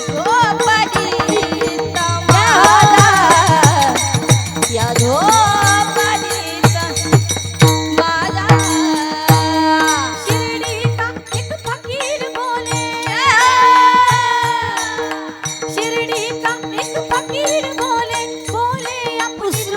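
Devotional kirtan music: a held drone under a wavering melodic line, with regular hand-drum strokes.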